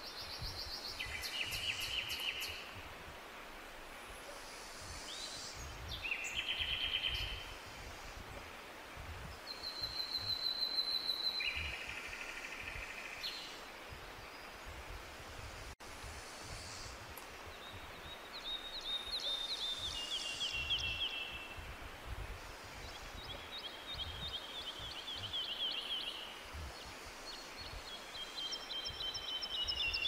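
Songbirds singing in a forest: a run of separate rapid trilled phrases, one after another, several sliding down in pitch in the second half, over a faint steady low rumble of background noise.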